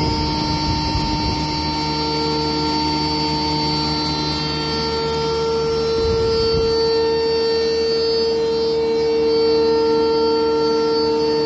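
Vikrem double-mill electric flour mill running at speed, grinding khapli wheat and ragi into flour, with a steady hum and whine of several constant pitches.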